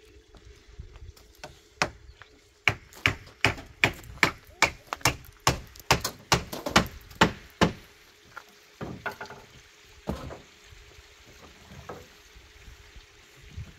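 A run of hard, sharp blows, like wood being chopped or struck, about two to three a second for some five seconds, then a few scattered knocks.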